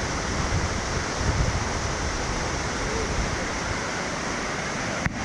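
Steady rushing of creek and waterfall water, an even hiss with no other event, cutting out for an instant near the end.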